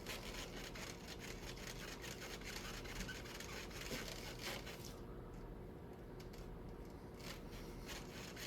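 Rapid scratchy rubbing and small clicks of a plastic blower wheel hub being worked loose along a rusty motor shaft. The scraping is busiest for the first five seconds and then thins out.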